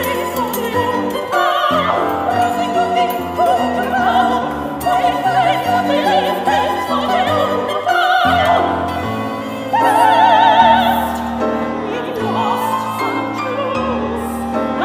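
Live opera music: a high singing voice with strong vibrato over piano and violin accompaniment.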